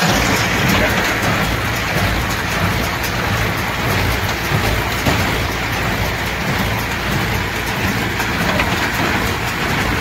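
Agrizone AZ 944 square baler running in a field, picking up straw: a steady, dense clatter and rustle from the pickup and feed mechanism, with a low engine rumble underneath.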